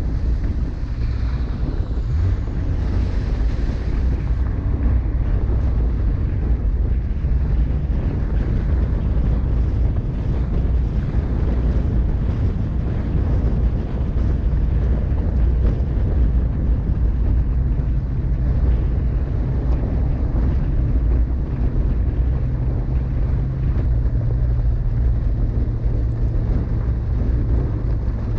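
A vehicle driving, its engine giving a steady low drone under a heavy rumble, with wind buffeting the microphone.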